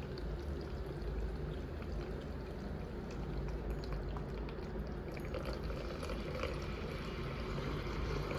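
Water poured into the heating tray of a self-heating meal, a steady liquid pouring and bubbling sound as the heating pack starts to react.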